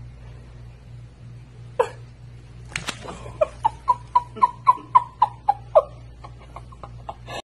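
A person giggling in a quick run of short, high-pitched notes, about four a second, after a sharp click.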